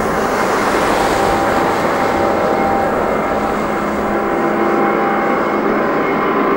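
Jet engines of a McDonnell Douglas MD-10-10F freighter (three General Electric CF6 turbofans) running on the runway. A loud, even noise with a few faint, steady whining tones over it.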